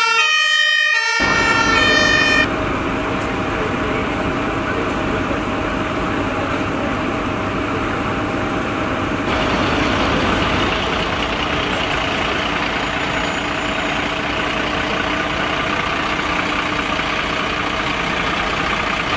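About two seconds of music break off, and a fire engine's diesel engine takes over, running steadily with a constant hum under a broad noise. About nine seconds in the sound gets louder and hissier.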